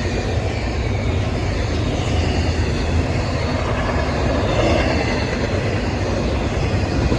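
CSX intermodal freight train's cars rolling past: a steady, heavy rumble of steel wheels on rail with wheel clatter.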